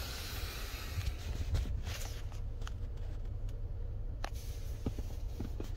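Faint rustling and a few light clicks over a low, steady rumble inside a car: handling noise.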